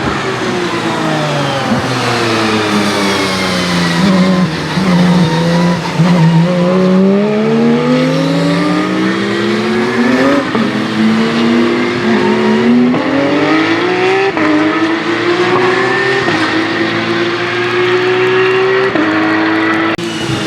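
A race car engine falls in pitch as the car slows, then climbs again as it accelerates away, with several sudden drops in pitch as it shifts up through the gears.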